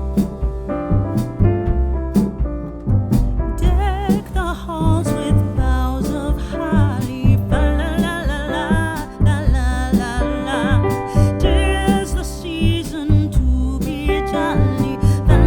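Background music: piano chords over a steady bass beat, with a wavering lead melody joining about three and a half seconds in.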